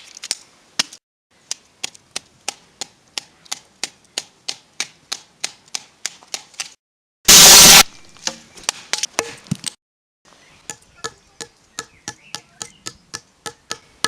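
Rapid hard knocks, about three a second, as a fidget spinner is hammered on, in runs cut short by sudden silences. About seven seconds in, a very loud, distorted blast breaks in for half a second.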